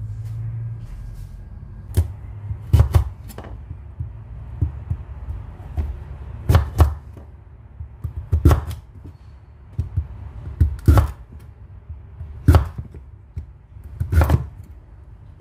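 Serrated kitchen knife cutting through a squash onto a wooden cutting board: sharp knocks of the blade striking the board, some single and some in quick pairs or threes, spaced irregularly about a second or two apart.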